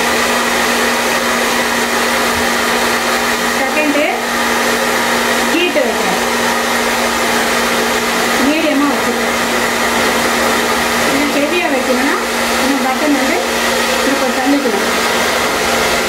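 A Super 3800 ionic-and-ceramic hair dryer runs steadily on its cool setting, a constant rush of air over a steady motor hum. Its tone wavers briefly now and then.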